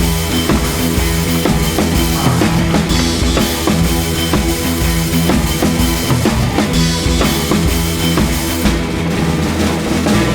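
Background rock music with a steady drum-kit beat and bass.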